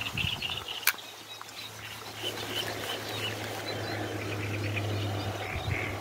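Birds chirping in short repeated calls over a steady outdoor background, with a steady low hum from about two seconds in. One sharp click about a second in.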